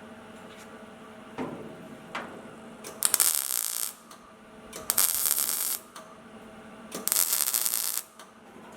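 Welding on car body sheet metal: three short welds of about a second each, heard as loud bursts of hiss, with quieter knocks and rustling between them.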